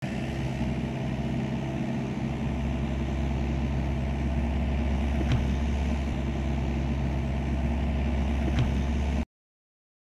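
Kubota KX121-3 mini excavator's diesel engine running steadily, with two sharp knocks about five and eight and a half seconds in. The sound cuts off suddenly near the end.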